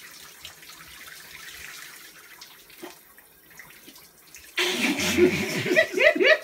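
Shower spray hissing steadily. About four and a half seconds in, a man bursts into loud laughter that runs to the end.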